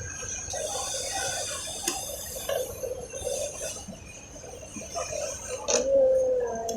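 Light clicks and scraping of hand tools and small metal parts on a single-needle sewing machine as its feed dog is fitted, with a short, slightly falling squeak near the end.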